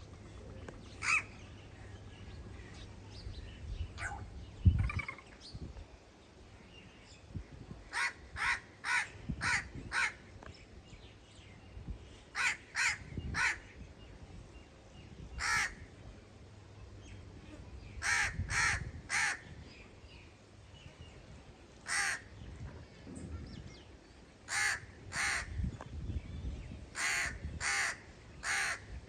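Crow cawing repeatedly: short harsh caws, mostly in runs of two to four, spaced out over the whole stretch. A single low thump sounds about five seconds in.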